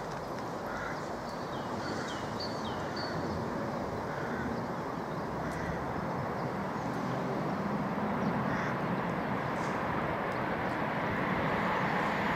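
Steady rushing noise from a distant London Northwestern Railway Class 350 electric multiple unit approaching on the line, mixed with wind, growing slowly louder. Birds chirp and call over it in the first few seconds.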